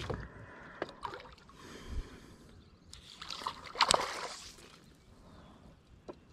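A hooked fish splashing at the water's surface beside a small boat, with light sloshing and a few soft knocks; the loudest splash comes about four seconds in.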